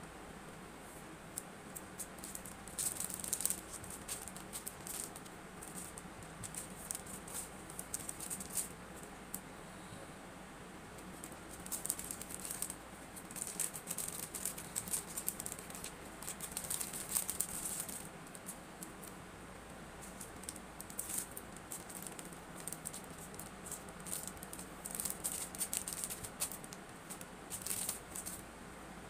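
Packaging and small items being handled by hand: bursts of quick, crisp crinkling and rattling clicks a few seconds long, with short pauses between.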